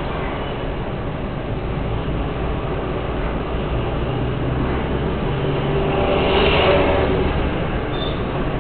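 Steady engine and road noise from a vehicle riding through city traffic, swelling louder about six to seven seconds in.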